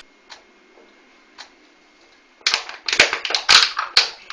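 A quiet stretch with two faint clicks, then, about halfway through, a quick irregular run of loud, sharp clicks and smacks, several to the second.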